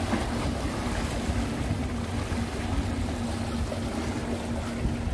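Steady drone of a passing boat's engine, with the swell of its wake washing against the shoreline rocks.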